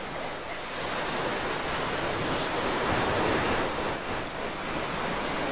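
Steady rush of ocean surf, a seaside sound effect in the anime soundtrack.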